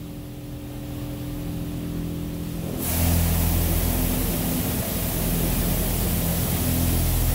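Touchless car wash spray hitting the van's body during the polish stage, heard from inside the empty cargo van over a steady low mechanical hum. About three seconds in, the spray suddenly gets much louder and turns into a full, steady hiss.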